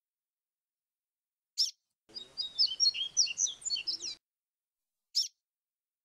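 Papa-capim (Sporophila seedeater) singing one short phrase of quick, flute-like whistled notes in the 'grego flautado' song type, about two seconds long. A single sharp chip comes just before the phrase and another about a second after it.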